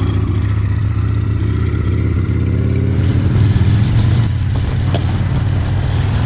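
Chopper motorcycle's V-twin engine running steadily while riding along, picked up close by a camera mounted on the bike.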